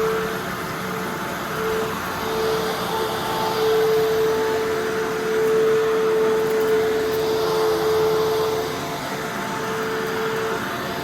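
Fantom Fury Special Edition upright vacuum cleaner running while vacuuming: a steady motor and fan rush with a steady whine, swelling and easing every couple of seconds. The motor has just been rebuilt, with the fan blown out and the bearings greased, and runs smoother, though the bearings still don't sound perfect.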